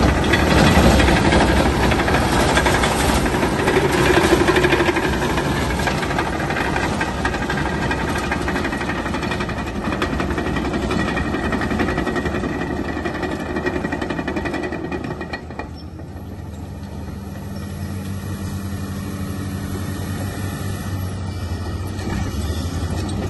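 1997 Cat D5M XL crawler dozer travelling: its diesel engine runs with a steady rattling clatter from the steel tracks. The sound is loud at first and fades as the dozer moves away. About sixteen seconds in it drops to a quieter, steadier engine note, which builds slightly again near the end.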